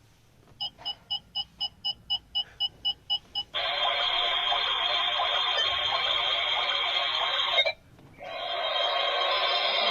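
A toy refrigerator's electronic sound module: about a dozen short beeps, about four a second, then an electronic tune that plays, breaks off briefly near the eight-second mark and starts again.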